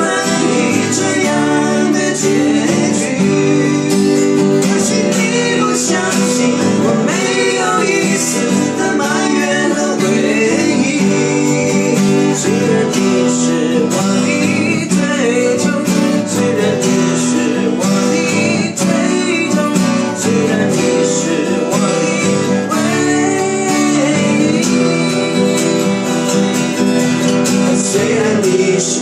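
Two acoustic guitars strummed together while two men's voices sing a Mandarin xinyao ballad.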